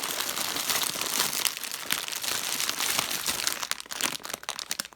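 A hand rummaging through a basket full of squishies: a dense crinkling and rustling that turns sparser, into separate crackles, near the end.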